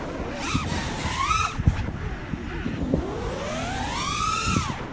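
Brushless motors and Gemfan 51466 props of a 6S 5-inch FPV freestyle quad (T-Motor F60 Pro V, 2020 kV) whining, the pitch sweeping with throttle through tricks. There is a quick rise and fall about a second in, then a long climb that peaks near the end and drops sharply, over a rough low rumble.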